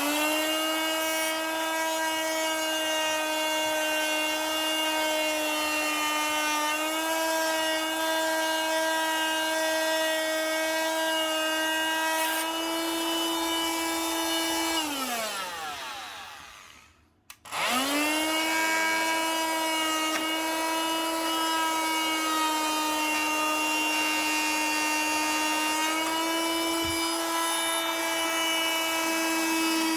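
Mac Allister MSMT300QC oscillating multi-tool running with a steady, high-pitched whine. About 15 seconds in it is switched off and winds down with falling pitch. A second or so later it is switched back on, spins up and runs on.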